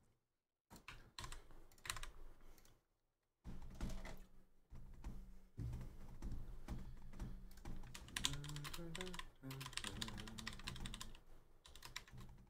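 Computer keyboard being typed on: quick runs of key clicks, broken by short pauses.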